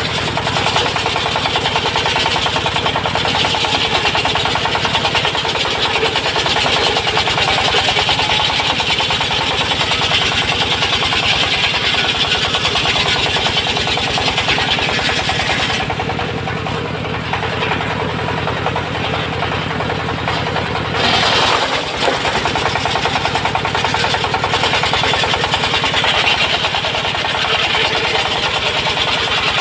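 Engine-driven circular sawmill running with a rapid steady engine beat, its blade cutting teak with a strong hiss. About sixteen seconds in the hiss drops away for some five seconds, with a brief louder burst near twenty-one seconds, then the cutting sound returns.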